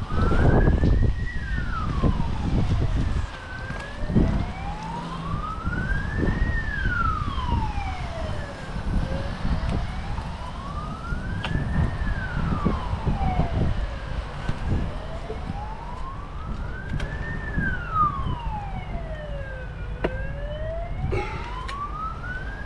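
A siren wailing, its pitch sweeping slowly up and down about every five seconds, over low rumbling noise that is loudest for the first few seconds.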